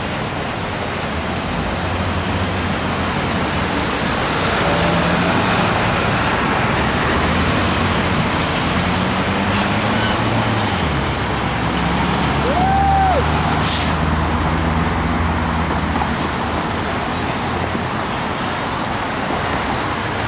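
Road traffic passing steadily, cars and engines going by. A short tone rises, holds and falls once, a little past the middle.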